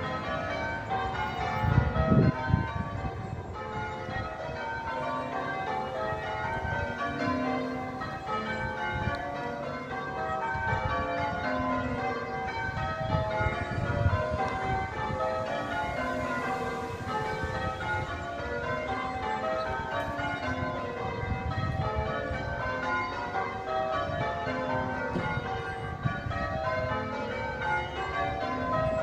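Church tower bells in change ringing: a continuous, even run of overlapping bell strikes at many pitches, stepping through the order of the changes. There are a few low thumps under the bells, the loudest about two seconds in.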